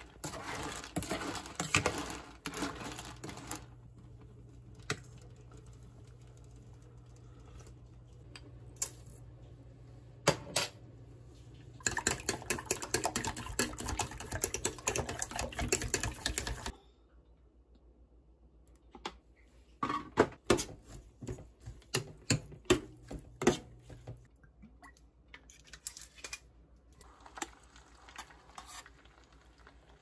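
Kitchen utensil sounds: a spoon clinking and scraping in a steel pot of boiling clam soup, then eggs whisked fast in a small stainless steel bowl, a dense clatter that stops suddenly, followed by scattered clicks and taps of utensils. A low steady hum runs under the middle part.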